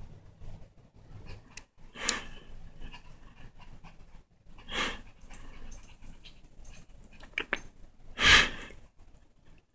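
Small dog panting hard while humping a blanket, with three louder short rushes of noise, the loudest near the end.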